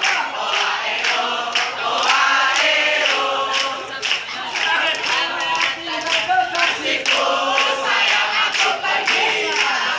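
A large group of young people singing together in unison, a loud chorus of many voices.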